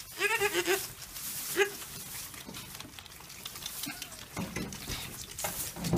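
Goat kids feeding from a bottle rack: a kid gives a short wavering bleat near the start and a brief one about a second and a half in, over rustling and sucking noises, with muffled bumps near the end.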